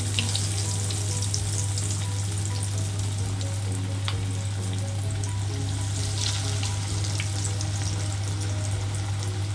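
Breaded fish cutlets frying in hot sunflower oil in a pan: a steady bubbling sizzle with crackles. It is strongest just as a cutlet is slipped into the oil and again around six seconds in, with background music underneath.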